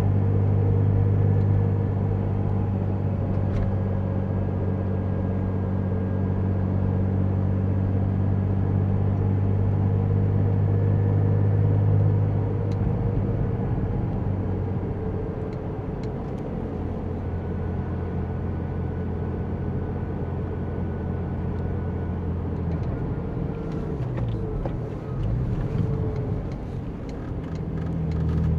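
Porsche 911 996 Turbo's twin-turbo flat-six engine running with road noise while driving. A steady engine note eases off about halfway through, then dips and rises in pitch near the end, with a few light clicks.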